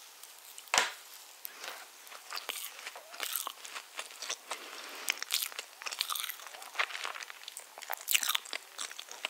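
Chewing a mouthful of spiced orange cake close to the microphone: a steady run of small wet mouth clicks and crackles, with one sharper click about a second in.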